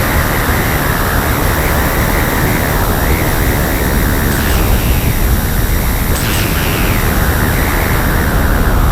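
Ritual industrial noise drone: a loud, steady wall of static-like noise with hiss above it.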